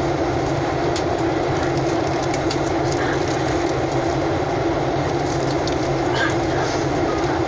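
Steady cabin drone inside a Boeing 737-800 in flight, the jet engines and the rush of air over the fuselage blending into one constant hum, as the airliner descends toward landing.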